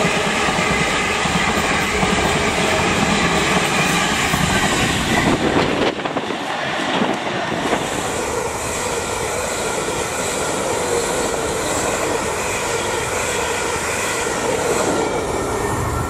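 A suburban electric multiple unit passing along the main line: steady wheel-on-rail running noise with a few steady tones in it. About six seconds in, the noise changes abruptly to a slightly quieter stretch of train noise.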